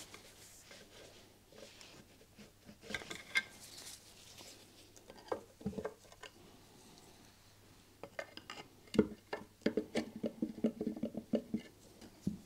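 Hand tools and gloved hands working at a Royal Enfield J-series engine's polished alloy side cover as it is levered off. Scattered light metallic clicks and knocks, the sharpest about three-quarters of the way in, then a quick run of rattling taps.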